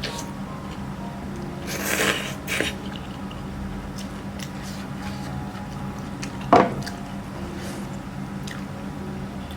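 Close-miked eating sounds: wet, squishy chewing with small clicks, two louder bursts about two seconds in, and a sharp knock about six and a half seconds in, over a steady low hum.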